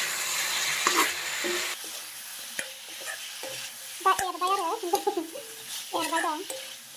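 Chicken pieces frying in masala in a metal kadai, sizzling while a steel spatula stirs and scrapes them. The sizzle is strongest in the first two seconds, then dies down to a quieter crackle with scattered clicks of the spatula on the pan.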